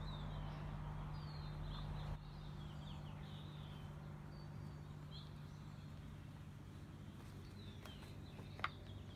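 Small birds chirping at intervals, short high calls that slide down in pitch, over a steady low hum. A single sharp click near the end.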